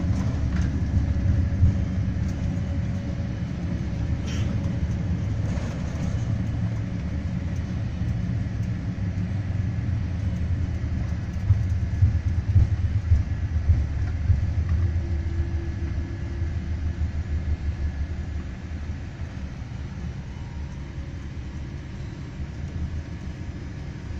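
Low rumble inside the cabin of a Boeing 787 on its landing rollout, engine and wheel noise together, growing gradually quieter as the airliner slows, with a few louder jolts around the middle.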